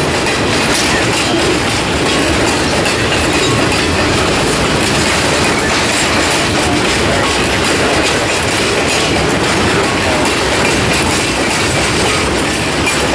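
Steel wheels of passing railcars rolling over the rails: a steady loud rumble with clattering clicks.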